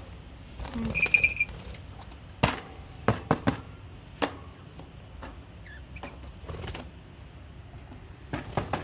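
Budgerigars in their cage: one short chirp about a second in and a fainter one later, among a scatter of sharp clicks and taps from the active birds.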